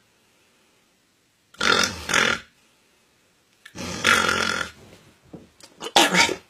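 A man snoring, acted for comedy, with long rasping snores separated by pauses: one drawn in two parts, a longer one about two seconds later, then a few short ones and a last loud snore near the end.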